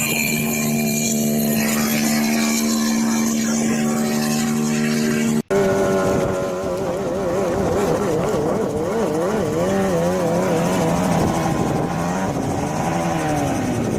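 Homemade helicopter's engine running with its rotor. It holds a steady pitch, cuts off abruptly about five seconds in, and then the engine speed wavers up and down.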